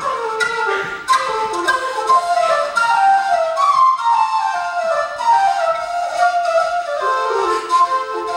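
Two F whistles playing a lively Irish traditional tune together, a continuous quick run of short notes.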